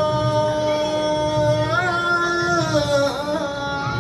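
Duff muttu singing: a male voice holds long sung notes, sliding up about two seconds in and back down near three seconds. Soft low thuds of daf frame drums sound underneath.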